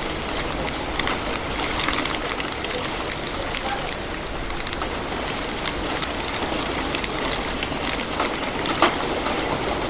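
Heavy rain falling steadily, a dense hiss with scattered drops ticking on a surface and one sharper tap near the end.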